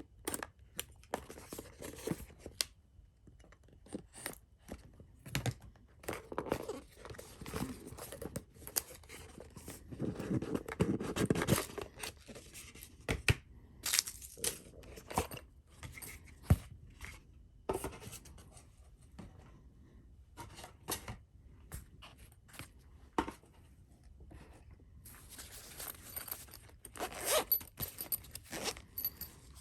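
A package being cut and torn open by hand: irregular snips, tearing, scraping and clicking of packaging, busiest about a third of the way in and again near the end.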